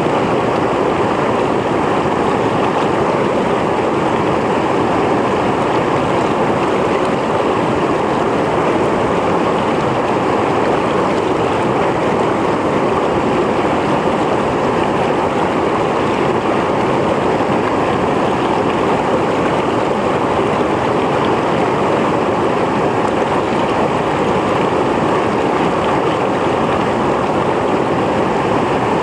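Mountain stream flowing over rocks: a steady, loud rush and splash of water that holds even throughout.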